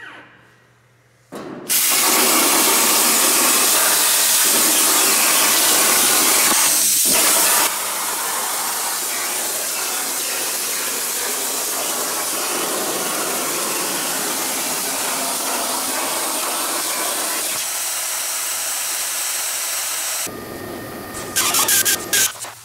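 CNC plasma torch cutting steel plate: a loud, steady hiss of the arc and its air that drops a step in level about a quarter of the way in, then stops. Near the end, a few short bursts from a pneumatic hand tool working the cut steel disc.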